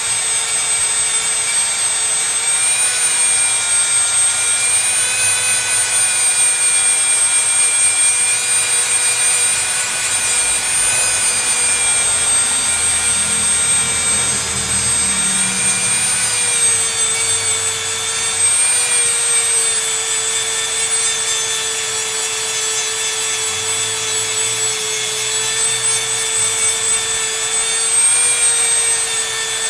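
Dremel rotary tool grinding paint off a composition doll's arm: a steady high motor whine with a rasping grind, its pitch dipping slightly now and then.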